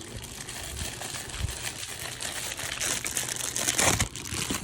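Packaging being handled: crinkling and rustling with small clicks, growing louder about three seconds in, with a stronger rustle near the end.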